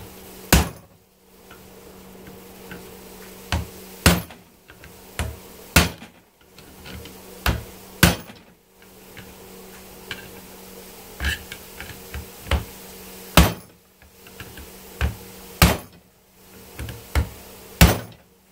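Hammer blows on a cold chisel set against the steel screw heads of a cast-aluminium dishwasher motor clamped in a bench vise, sharp metal-on-metal strikes. About seven heavy blows, unevenly spaced, with lighter taps between them, busting the seized screws off at the head.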